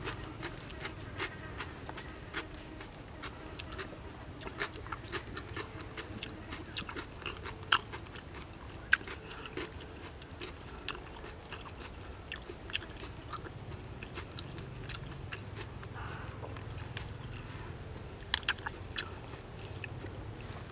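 Close-up eating sounds: chewing and crunching of raw lettuce wrapped around rice noodles, with scattered sharp mouth clicks and smacks, a few louder ones about 8 and 9 seconds in and a cluster near the end. Lettuce leaves crinkle as they are folded, over a low steady hum.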